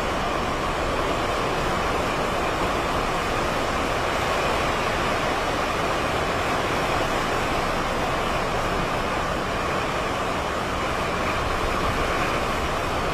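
Steady rushing of strong hurricane wind through palms and trees, an even roar with no separate gusts or impacts.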